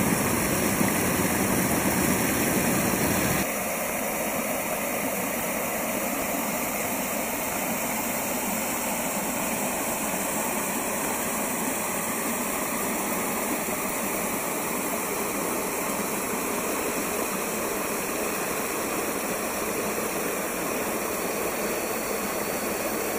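Water rushing steadily over a small rock cascade into a pool. About three and a half seconds in it cuts to the softer, lighter flow of a shallow creek over gravel and stones.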